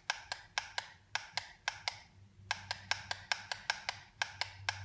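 Rapid clicking of a plastic push button on a TempMinder MRI-213MXW wireless weather station receiver, pressed about four or five times a second to step through the day setting, with a short pause about two seconds in.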